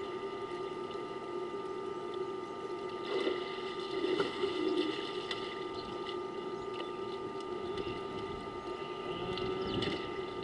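Water sloshing and splashing as an African elephant wades and drinks with its trunk in a waterhole, over a steady electrical hum with several thin tones. The water sounds swell briefly about three to five seconds in and again near the end.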